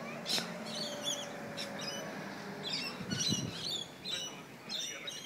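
Small birds chirping, many short, quick high calls overlapping, with a brief low sound about three seconds in.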